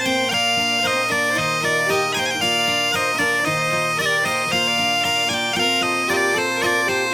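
Background instrumental music: a piped melody of quick changing notes over a steady drone, with a regular beat underneath.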